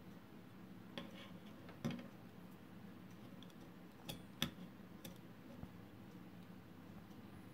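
Handling noise from a small circuit board: a few light clicks and knocks as it is turned over and set down on a wooden table, over a faint steady hum.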